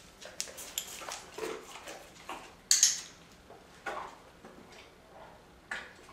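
A dog shifting about on a tiled floor during clicker training: scattered light taps and small dog noises, with one sharp, louder click about three seconds in.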